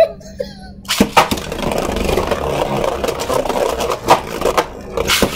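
Two 3D-printed Beyblade Burst tops launched into a plastic stadium, landing with sharp clacks about a second in. They then whir and scrape across the plastic floor, with more sharp clacks as they strike each other or the wall.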